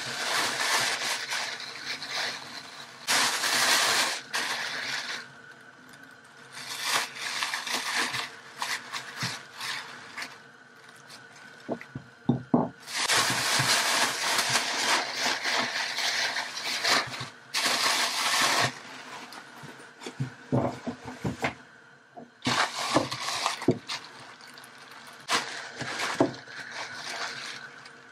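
Thin plastic produce bags crinkling and rustling in irregular bursts as they are handled and untied, with a few light knocks around the middle.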